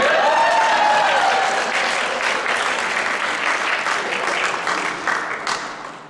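Audience applauding, starting suddenly and fading away near the end.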